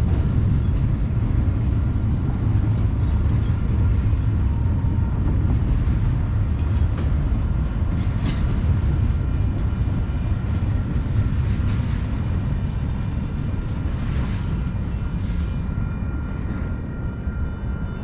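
Double-stack intermodal freight cars rolling by on the rails: a steady low rumble of wheels on track with a thin high ringing tone and a few clicks, easing off a little near the end as the last cars pass.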